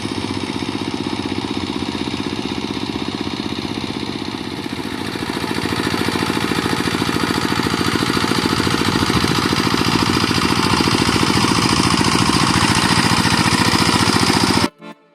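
Small engine running steadily with a fast, even beat, growing louder from about five seconds in, then cut off abruptly near the end.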